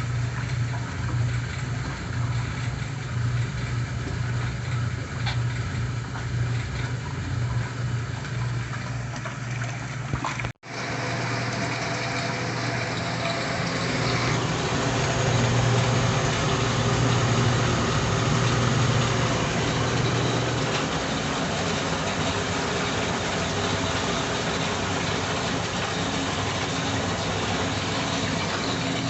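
Bendix Economat washing machine running: a steady electric-motor hum with water churning inside the tub. The sound breaks off for an instant about ten seconds in and comes back with more water noise.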